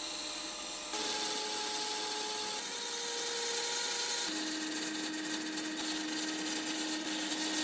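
Lathe running with its steady whine while the spinning gear-knob blank is filed and sanded, a rasping hiss over the motor tone. The whine jumps to a new pitch about a second in, again near the middle, and once more a little later.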